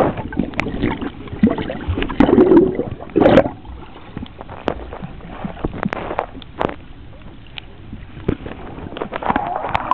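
Muffled underwater sound picked up by a waterproof camera held below the surface: water gurgling and sloshing, with scattered clicks and knocks. It swells louder for a moment about two to three seconds in.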